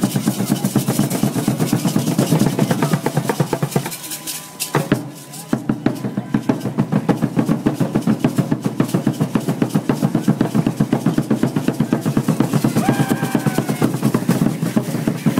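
Drum for Aztec dance played in a fast, steady beat, with the dancers' ankle seed-pod rattles shaking along. The drumming breaks off for a moment about four seconds in, with one hit, and then picks up again.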